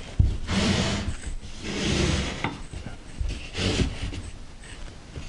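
Metal wrenches being handled: three spells of clunking and rubbing as tools are moved about and set down on a hard surface.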